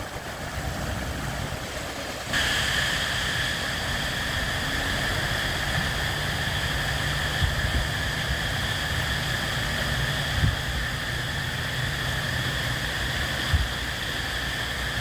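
Swollen, flooding stream rushing steadily, with a low rumble underneath; the rush grows suddenly louder about two seconds in and stays steady. A couple of soft thumps near the end.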